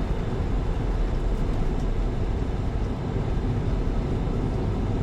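Car driving at road speed, a steady low rumble of tyre, road and engine noise heard from inside the cabin.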